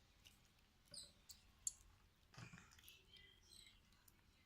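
Faint, scattered small squeaks and clicks of slime being handled and stretched.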